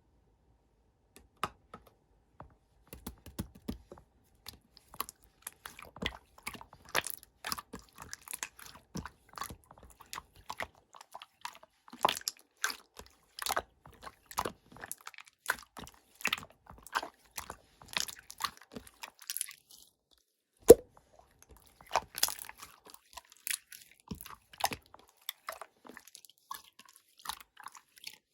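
Slime being squished and pressed by hand, making irregular sticky clicks and small pops of trapped air, with one sharp louder pop about two-thirds of the way through.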